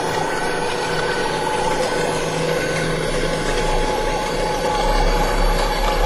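Synthesized UFO sound effect: a steady electronic drone with a thin high whistling tone over it, its low rumble growing stronger about three seconds in.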